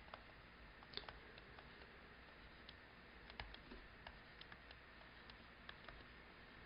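Near silence with faint, irregular ticks of a stylus tapping and sliding on a tablet screen during handwriting.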